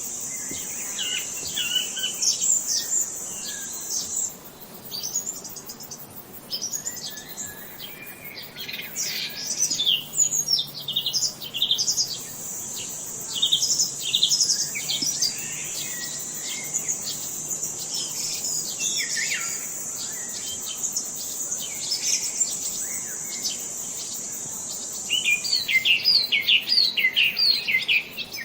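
Songbirds chirping with many quick, short calls, over a steady high-pitched buzz that drops out for several seconds in the first half and stops shortly before the end. A dense run of rapid chirps fills the last few seconds.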